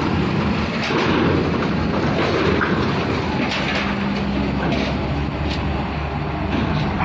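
Hino diesel cargo trucks rolling off a ferry's steel ramp onto steel-grating decking, engines running with a steady rumble. A few sharp clanks come as wheels cross the ramp plates.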